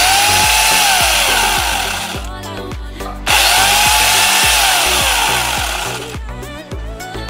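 Electric angle grinder fitted with a chainsaw bar and chain, switched on twice in short bursts; each time the motor whine climbs to speed, holds for a second or two, then winds down after release.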